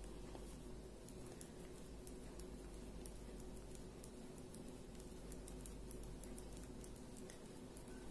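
Knitting needles clicking faintly and irregularly as stitches are purled, over a low steady hum.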